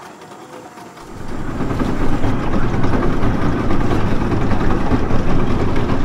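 Motorboat engine running, coming in about a second in and then holding steady and loud.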